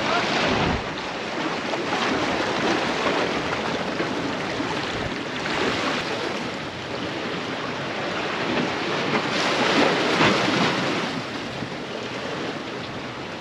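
Sea waves washing against jetty rocks, a steady rush of water that swells louder near the start, about five seconds in and again around ten seconds in. Wind buffets the microphone.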